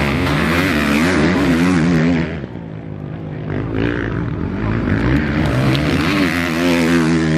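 Motocross race bike engines revving hard, the pitch rising and falling with the throttle. One bike fades after about two seconds, and another grows louder as it approaches.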